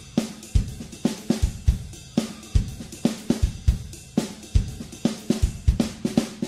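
Background music: a drum-kit beat of kick drum, snare and hi-hat, with sharp strikes recurring in a steady rhythm.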